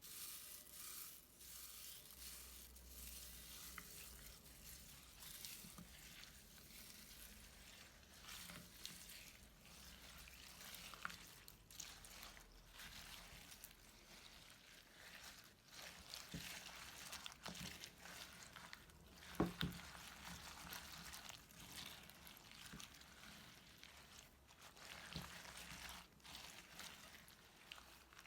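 Slime being stirred and squished: a soft, sticky crackling full of small clicks and pops, with one louder pop about two-thirds of the way through.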